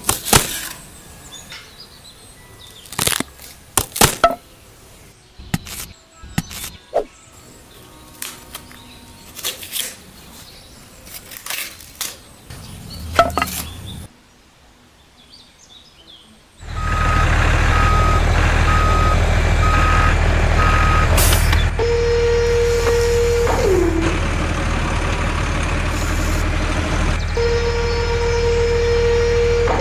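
Scattered small clicks and knocks from handwork, then a loud, steady vehicle engine rumble starting about halfway through. Over the rumble comes a run of regular reversing-style beeps, and later two long tones that each drop in pitch at the end.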